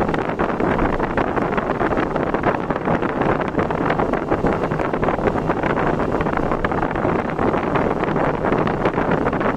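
Steady rush of wind on the microphone with road noise from a vehicle travelling at speed.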